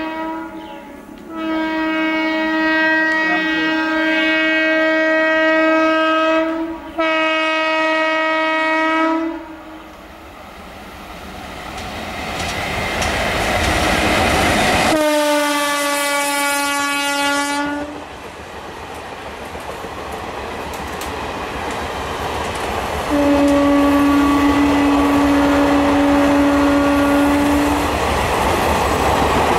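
Indian Railways locomotive horn sounding in several long blasts as a train approaches. The train then passes at speed, its horn dropping in pitch as it goes by, followed by the rumble and clickety-clack of the coaches. Near the end comes another long horn blast.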